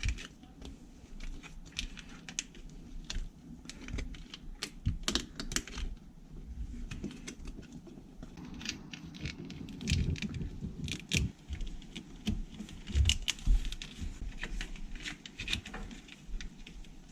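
Irregular clicks, taps and rattles of hands working plastic conduit over a car wiring loom, with a few duller knocks.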